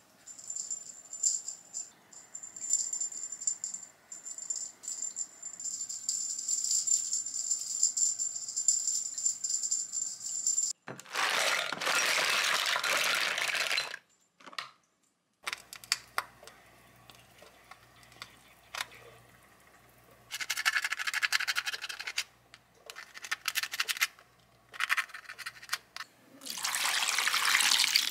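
Raw mussels being cleaned: shells clattering as they are tipped into a glass bowl, then tap water running in several bursts over them in a steel sink, with shells clicking as they are handled. A thin high steady tone with scattered clicks fills the first third.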